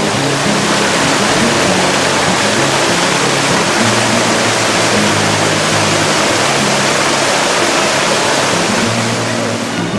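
Loud, steady rushing of a waterfall, with background music playing under it.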